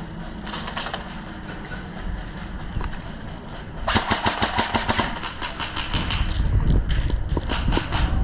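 Airsoft guns firing in rapid full-auto bursts: a short burst about half a second in, a longer one about four seconds in, and another near the end. Wind rumbles on the microphone.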